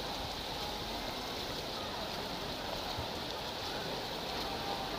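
Steady outdoor swimming-pool ambience: a continuous hiss of splashing water with faint, distant spectator voices.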